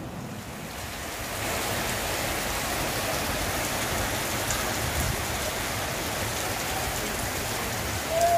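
Steady rain falling on a wet flat roof and terrace: an even hiss that grows a little louder about a second in.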